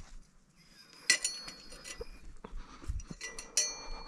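Metal fishing tackle clinking while rods are set up: two flurries of sharp clinks with a brief bright ring, about a second in and again near three seconds, with a few dull knocks of handling between them.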